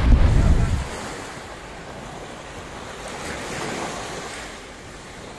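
Small sea waves breaking and washing up on a sandy beach, with a swell of surf about halfway through. Wind buffets the microphone with a loud low rumble in the first second.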